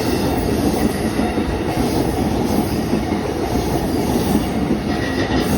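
Rinkai Line 71-000 series electric train passing over a level crossing: a steady, loud running noise of the wheels on the rails.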